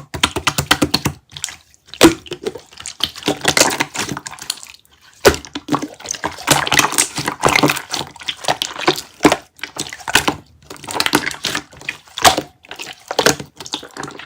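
Close-miked chewing of kiwi konjac jelly: a dense run of clicking, crackling mouth sounds, with a short pause about five seconds in.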